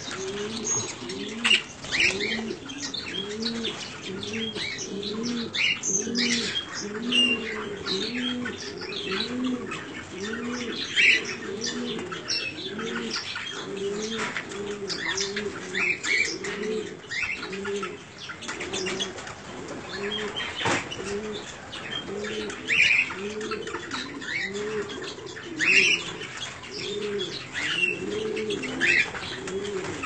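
Doves cooing over and over in low, rounded notes, about two a second, with small parrots (grass parrots and red-rumped parrots) chirping in short high calls over them.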